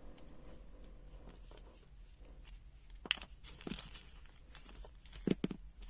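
Faint rustling and crinkling of packaging being handled, with a few light clicks, the sharpest about three seconds in and again a little after five seconds.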